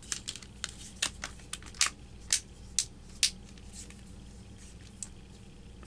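Plastic back cover of an LG Risio 2 phone being pressed back on, its clips snapping into place as a run of about ten short, sharp clicks over three seconds, with one faint click near the end.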